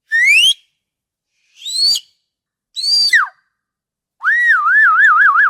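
Orca (killer whale) calls: three short, whistle-like calls, the first rising in pitch and the next two arching up and then dropping. About four seconds in, a longer call begins whose pitch wavers quickly up and down.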